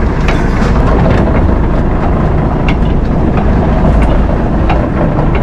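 Fishing boat's engine running steadily, with scattered sharp clanks as the heavy net is hauled aboard on a pulley.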